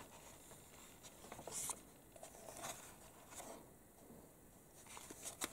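Faint rustle of a glossy magazine page being turned by hand, with a few soft paper and hand sounds and a small click near the end, over quiet room tone.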